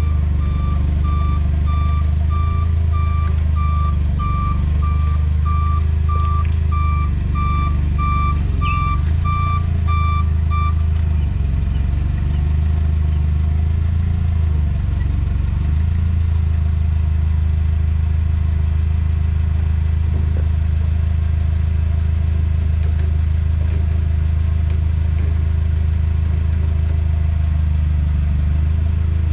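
The engine of the machine lifting the glass runs steadily with a low hum. A warning beeper sounds about twice a second over the first ten seconds or so, then stops.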